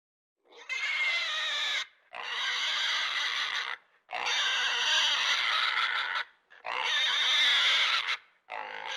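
Designed dinosaur vocal sound effects for Hypsilophodon: a series of shrill, wavering animal calls. There are four calls of one to two seconds each, with short breaks between them, and a fifth begins near the end.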